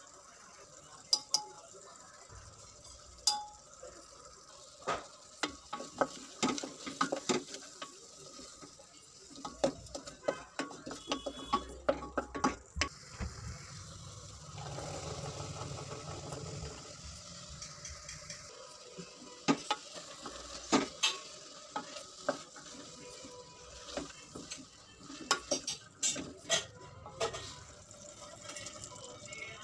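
Spoons and a wooden spatula tapping and scraping against a stainless steel pressure-cooker pot as spices are added and the mixture is stirred. About fourteen seconds in, chopped green beans go into the hot pot and sizzle for a few seconds.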